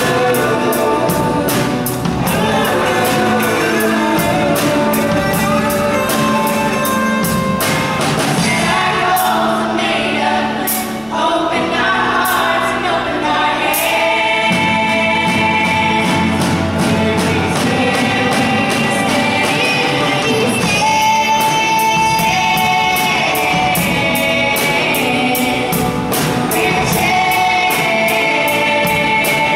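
A group of student singers sings a song set to a popular country tune in unison. They are backed by a live band of acoustic guitar, keyboard and drum kit keeping a steady beat.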